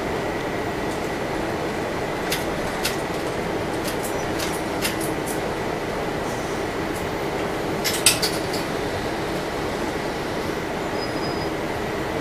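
Steady drone of a city bus in motion, heard from inside the cabin, with sharp rattles and clicks several times and a louder clatter about eight seconds in.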